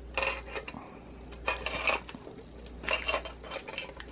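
Small metal mini tin handled in the hands: light metallic clicks and knocks, with three short scraping bursts.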